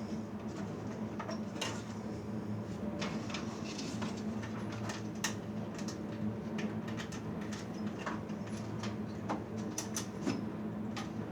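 Scattered light clicks and metallic taps as a metal server chassis is worked apart by hand, over a steady low hum.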